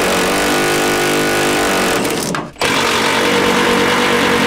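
Milwaukee M18 cordless impact wrench hammering as it backs out rusty truck bed bolts from the frame: it runs for about two seconds, stops for a moment, then runs again.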